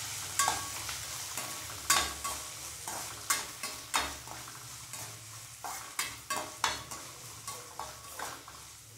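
Steel spatula scraping and knocking against a stainless-steel kadai while chopped onions with curry leaves and mustard seeds are stirred and sizzle in hot oil, sautéing until soft. The scrapes come about twice a second, over a sizzle that slowly fades.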